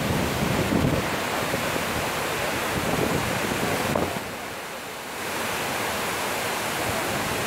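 Artificial waterfall's water rushing and splashing steadily, with wind buffeting the microphone in low rumbles during the first four seconds. The rush dips briefly about halfway through, then comes back.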